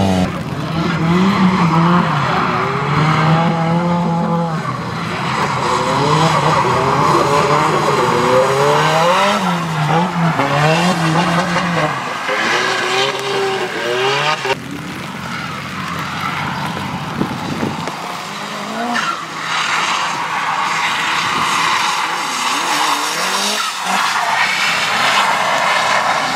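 Nissan Silvia drift cars' engines revving hard and falling back again and again as they slide sideways through the corners, with tyre skid noise on a wet track.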